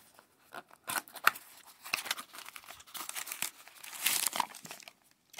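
Brown paper wrapping being torn and peeled away by hand, crinkling in irregular bursts.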